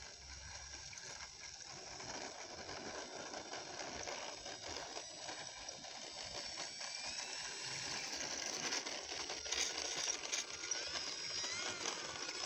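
RC model biplane taxiing on a dirt strip, its motor and propeller running at low throttle and growing steadily louder as it approaches. Brief pitched whistles come and go in the second half.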